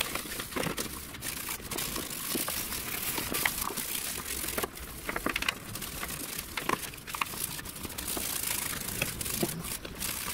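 Brush scrubbing petrol over a car's steel chassis rail, washing off Movil anticorrosive and sealant to degrease it for primer: continuous scratchy scrubbing with scattered clicks and taps.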